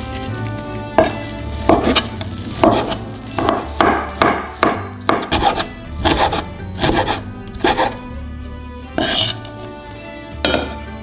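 Kitchen knife chopping on a bamboo cutting board, about a dozen irregular strokes cutting through a rolled egg crepe and blanched spinach, over soft background music.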